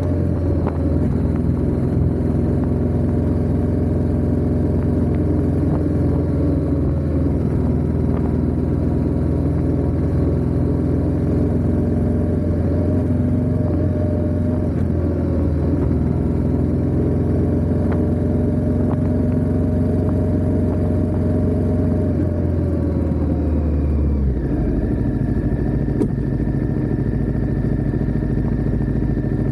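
Ducati Diavel 1260S's 1262 cc V-twin engine running steadily under way, heard from the rear of the bike. About 24 seconds in the engine note drops and settles into a different steady tone.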